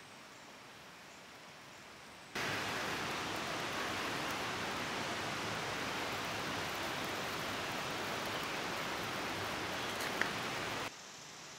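Marinated chicken sizzling on a steel grill grate over a wood campfire: a steady, dense hiss that starts suddenly about two seconds in and cuts off shortly before the end, with a single click near the end.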